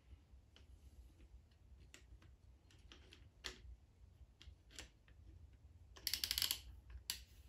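Light metal clicks and taps as a piston in a ring compressor is positioned over a cylinder bore of a 427 FE SOHC engine block, with a short, louder scraping rattle of metal about six seconds in and again briefly near the end.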